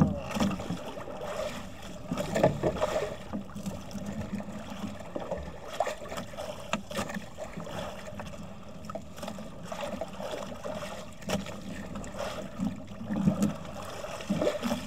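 Gill net being hauled by hand into a small outrigger boat: water sloshing against the hull, the wet mesh rustling and dragging over the gunwale, with scattered short knocks.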